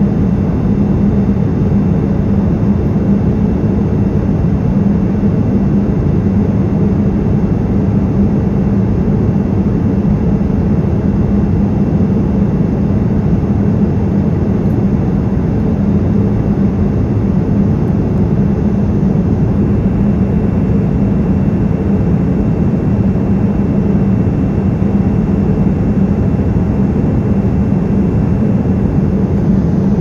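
Boeing 787-9's Rolls-Royce Trent 1000 turbofan engines heard from inside the passenger cabin at cruise altitude: a loud, steady, unchanging jet engine and airflow hum, strongest in the low range.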